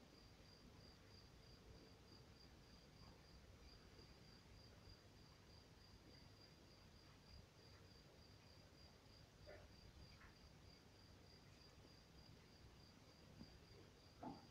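Near silence with a faint, high chirp pulsing evenly about four times a second, typical of an insect calling; a soft knock near the end.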